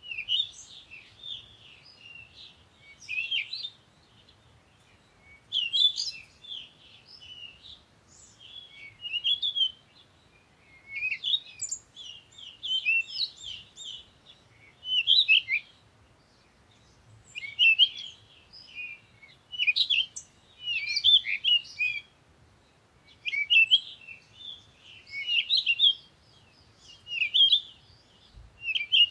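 Small birds chirping and twittering in short bursts of quick, high notes, repeating every two seconds or so.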